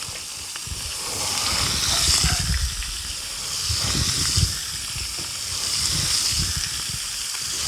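Strips of bacon frying in lard on a plough-disc pan over a wood fire: a steady sizzle that swells and ebbs about every two seconds, with a low irregular rumbling underneath.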